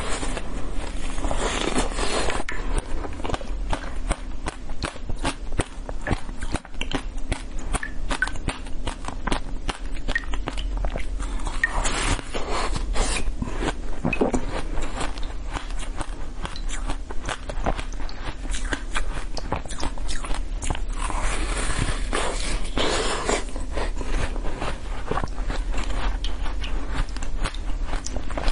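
Close-miked biting and chewing of a seed-speckled pastry. It is a steady run of many short clicks and wet mouth sounds.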